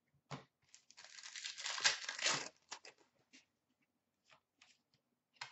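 A hockey card pack's wrapper being torn open, a crinkling rip lasting about a second and a half. A few faint rustles and clicks of cards being handled follow.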